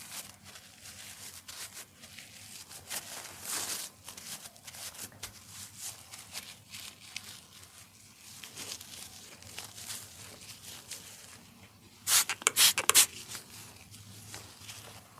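Hands rubbing and sliding over skin during a face massage: soft, uneven swishing friction. About twelve seconds in, a quick run of four or five loud sharp smacks cuts through.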